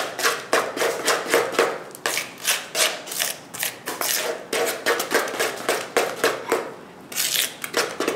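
A spoon beating thick cake batter by hand in a plastic mixing bowl: quick, even strokes of about three a second, each a short scrape and tap of the spoon against the bowl.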